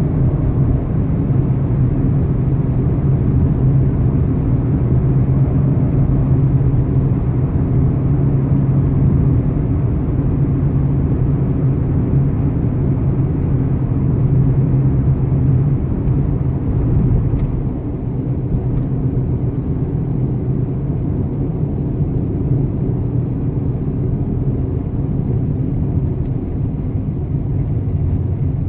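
Car driving: a steady low rumble of engine and road noise that eases a little about two-thirds of the way through.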